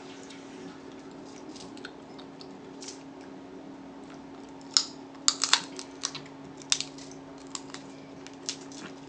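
Snow crab leg shells being cracked and pulled apart by hand: scattered sharp, crunchy clicks, bunched most densely about five seconds in. A steady low hum runs underneath.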